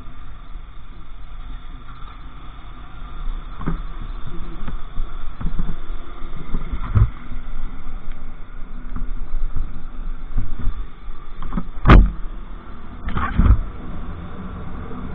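Motorbike riding on a city street, heard from a camera mounted on the bike: steady engine, road and wind noise with a few sharp thumps, the loudest near the end.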